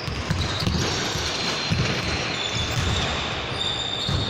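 Basketball bouncing on a hardwood court during play, a series of low thuds at uneven intervals over the steady noise of players moving in a gym.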